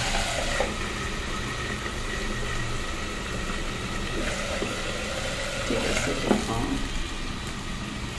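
Steady low mechanical hum, with a few faint knocks.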